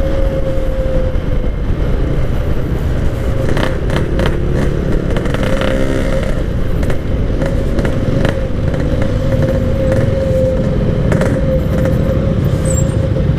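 Yamaha RX-King two-stroke motorcycle engine with a Packing Power aftermarket exhaust, running while riding and holding a steady note.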